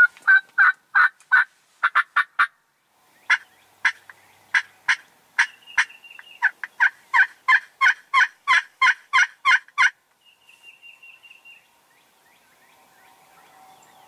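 Wild turkey yelping: a long run of short, evenly spaced notes, about three a second, with a brief pause a few seconds in. It stops about ten seconds in, followed by a short run of faint, higher notes.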